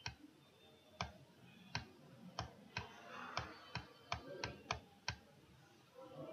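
Faint, irregular clicks of a computer mouse button, about a dozen, as letters are drawn stroke by stroke on a virtual whiteboard.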